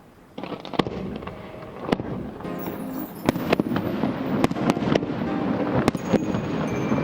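Fireworks bursting with sharp bangs and crackles over music, starting suddenly about half a second in and coming faster, several bangs a second, from about three seconds in.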